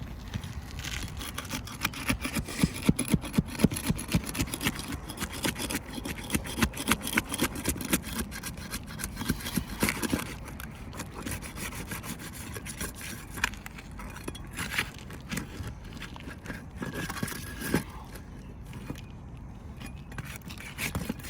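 Steel flat bar scraping and prying under asphalt roof shingles, tearing them loose from a strongly bonded sealant strip so that the shingles rip and shred. A rapid run of scrapes and cracks, denser and louder in the first half.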